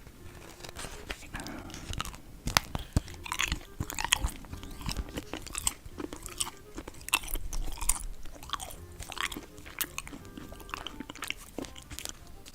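Close-miked mukbang eating: a person biting and chewing something hard and crunchy, with many irregular sharp crunches.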